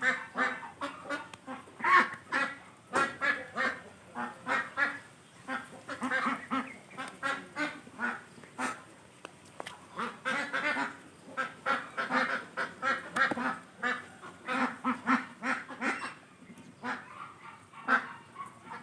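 A bird calling in runs of short, rapid honking notes, several a second, with brief pauses between the runs.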